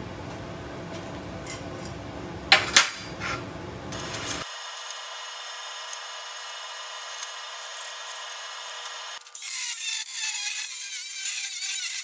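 A few sharp knocks of steel being handled about two and a half seconds in. From about nine seconds in, an angle grinder with a cut-off disc is loud and high as it cuts through steel sheet.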